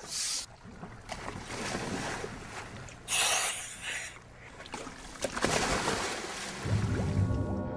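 Water splashing and sloshing in bursts, with the loudest burst about three seconds in. Low music fades in near the end.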